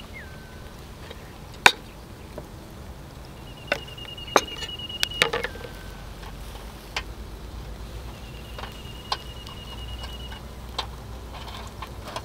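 Sharp, scattered clicks and taps from a charcoal grill as bamboo skewers of octopus are handled and turned on the wire grate. A high, rapid trill repeats three times in the background.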